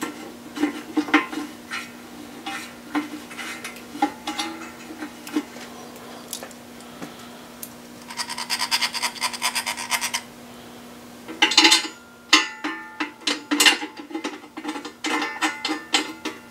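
Hand ratchet clicking rapidly for about two seconds midway, with scattered metallic clicks and taps of tools and bolts on the oil pump and engine block. A steady low hum runs underneath.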